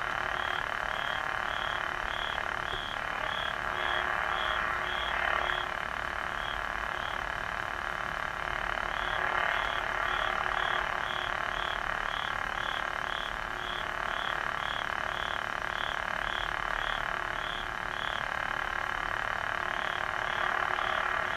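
Lightsaber sound board's blade hum playing through its small speaker, steady with a few swells, overlaid by a regular high beat of about two a second that drops out briefly twice.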